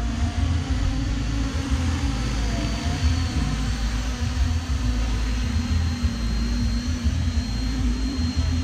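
Radio-controlled 3D helicopter flying, its rotors and motor giving a steady drone with a thin high whine, over a heavy uneven low rumble.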